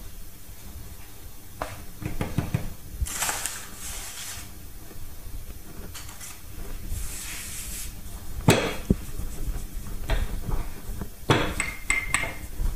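Hands working a sheet of pastry dough on a wooden board: soft rubbing swishes, with a few sharp knocks on the wood, the loudest about eight and a half seconds in and several more near the end.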